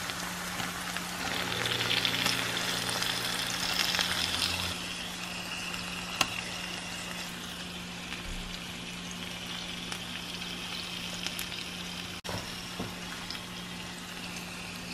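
Thin-sliced beef frying in hot oil with onions and garlic in a nonstick pan: a loud sizzle for the first few seconds as the meat goes in, settling to a steady, quieter sizzle. A light click about six seconds in.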